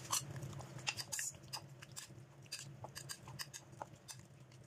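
Raw chicken being mixed with its marinade and ginger-garlic paste in a bowl: irregular soft clicks and scrapes.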